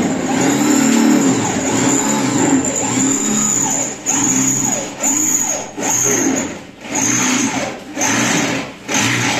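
A car engine revved in repeated short blips, its pitch rising and falling with each one, about once a second in the second half.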